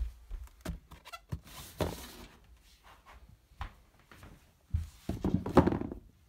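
Handling noise from a handheld recording: irregular knocks and thunks mixed with rustling, with a brief rustle about two seconds in and a louder cluster of bumps and rustling shortly before the end.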